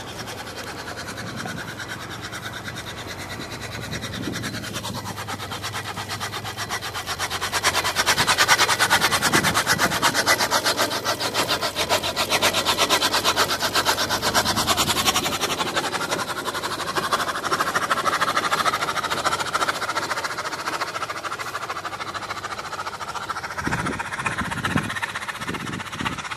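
Allis-Chalmers WC tractor towed in gear, its unfired four-cylinder engine and driveline turned over by the wheels with a fast, even mechanical clatter. The clatter grows louder about seven seconds in and stays strong through the middle, with a few low thumps near the end.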